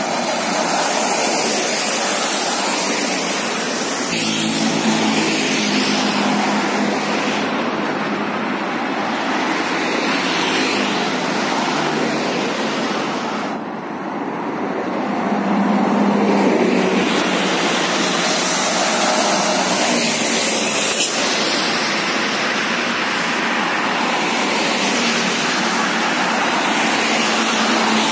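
Road traffic passing on a wet road: a steady hiss of tyres on wet asphalt with the engines of buses, trucks, cars and motorcycles swelling and fading as they go by. A brief lull comes just before halfway, then another heavy vehicle's engine swells past.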